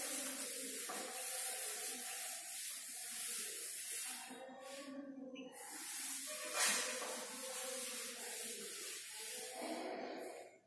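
Chalkboard being wiped with a cloth duster: a steady rubbing hiss that breaks off for about a second around four seconds in. It resumes with one louder stroke about six and a half seconds in, then stops just before the end.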